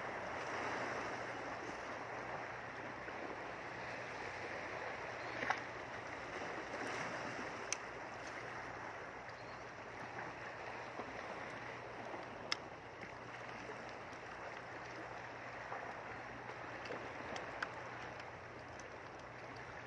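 Steady rush of water washing against a rocky shore, with a few sharp, isolated clicks.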